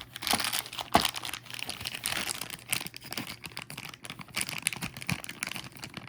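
Plastic packaging crinkling and crackling as it is pulled open by hand, an irregular run of rustles with a sharper snap about a second in.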